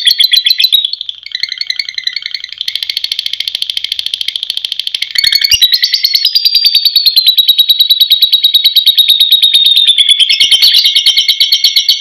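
Lovebird singing 'ngekek': a long, unbroken, very fast high-pitched chattering trill. A short click comes about five seconds in, after which the trill is louder.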